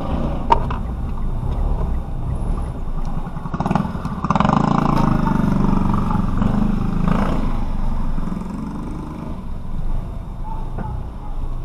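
Road and engine noise of a moving vehicle, heard from inside the car, a steady low rumble that swells louder for a few seconds in the middle. A single sharp click comes about half a second in.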